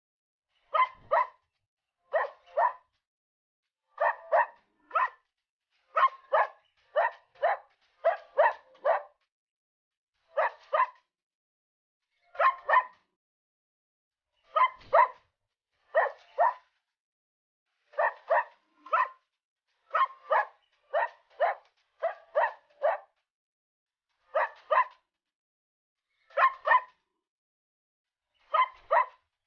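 A dog barking, mostly in quick pairs, repeated every second or two with dead silence between the barks.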